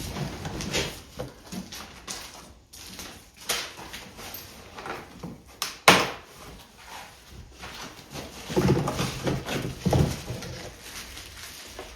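Protective wrapping being pulled off and crinkled by hand while a packed e-bike part, a fender, is unwrapped, with irregular rustles and knocks and one sharp snap about six seconds in.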